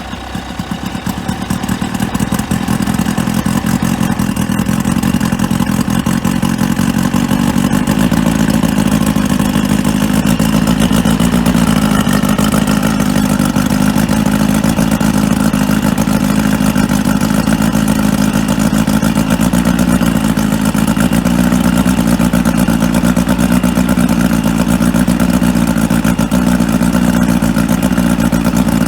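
Outboard motor running steadily on flushing muffs on its first start after sitting 22 years, running pretty good. It picks up over the first couple of seconds, then holds an even run.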